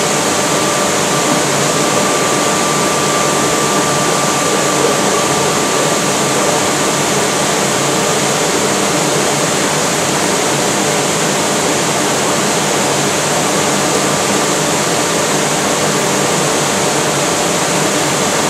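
Electric fan blower running steadily: a loud, even rush of air with a faint steady hum in it.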